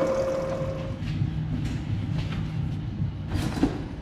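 Face mill on a bed mill cutting a hex flat in a steel bushing under flood coolant. A steady whine stops about a second in, leaving the machine's low running rumble and a few light clicks.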